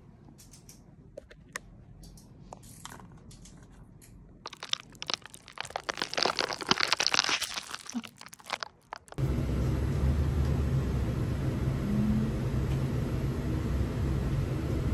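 Light clicks, then a loud stretch of crunching and crinkling from a takeout meal of chicken wings in a foil tray and plastic containers. About nine seconds in it cuts abruptly to the steady low rumble of a bus running on the road.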